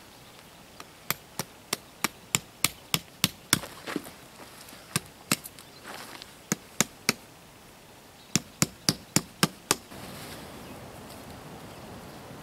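Tent stake being hammered into hard dirt ground: runs of sharp strikes, about three a second, with short pauses between. The strikes stop near the end, and a soft steady noise is left.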